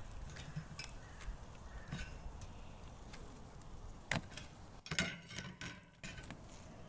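A few light clicks and knocks as grilled lamb pieces and peppers are set on a plate, the loudest about four and five seconds in, over a low steady background rumble.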